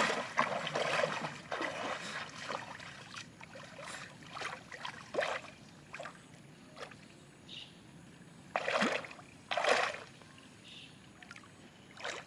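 Water splashing and sloshing in irregular bursts: a busy stretch over the first couple of seconds, then scattered splashes, with two louder ones about two-thirds of the way through.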